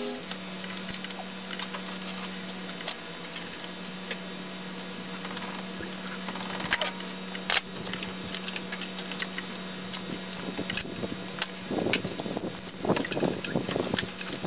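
Hand tools and metal parts clinking and rattling in a car's engine bay as parts are removed. There are scattered sharp clicks, and a busier run of clicks and rattles near the end. A steady low hum runs underneath.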